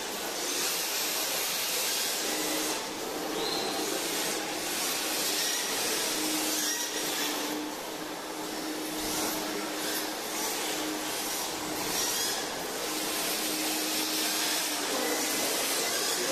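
Radio-control drift cars sliding on a smooth indoor track: a steady whir of electric motors and hiss of hard tyres on the floor, with a hum that comes and goes and a few brief squeaks.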